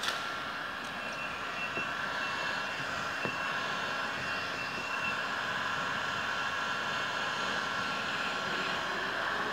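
Handheld electric heat gun running steadily, its fan blowing hot air at close range while heating vinyl wrap foil on a car's chrome window trim. A brief click at the very start.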